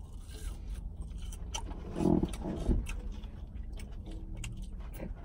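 Someone eating fast food in a car: scattered crunching and small clicks of chewing, with a short hum about two seconds in, over a low steady rumble in the car's cabin.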